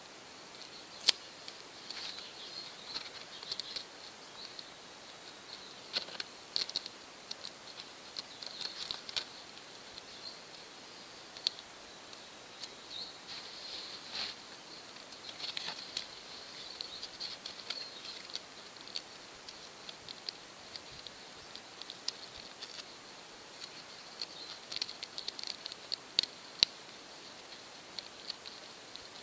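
Hands handling a card model-boat cabin and a clear plastic sheet while glazing its windows: scattered light clicks, taps and crinkles of plastic and card, some sharper snaps, with no steady sound.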